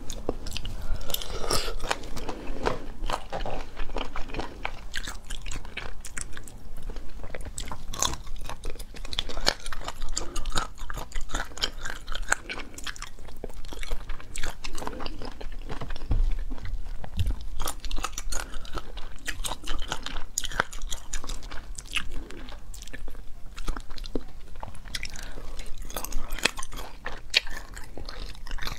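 Close-miked chewing and biting of braised chicken feet, with wet mouth sounds and frequent crunching.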